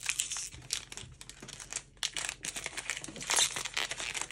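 Foil trading-card booster pack wrapper crinkling in quick irregular rustles as it is handled and torn open, loudest a little after three seconds in.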